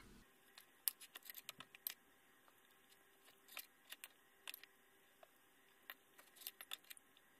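Knife and fork clicking and scraping against a plate while cutting a slice of French toast: faint, light clicks in several short clusters.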